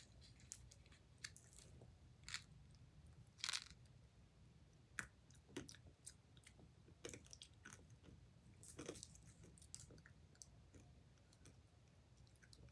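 Close-up chewing of Nerds candy: irregular short crunches of the hard little candies, the loudest about three and a half seconds and nine seconds in.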